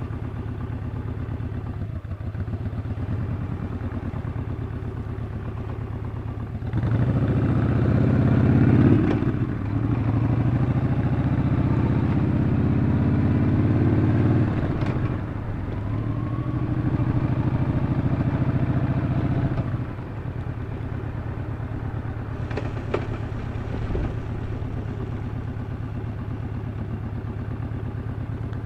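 Yamaha XV950 Bolt's air-cooled V-twin engine idling, then pulling away about seven seconds in and running under load. The load eases twice, as at gear changes, before the engine settles back to idle for the last third, with a couple of short clicks near the end.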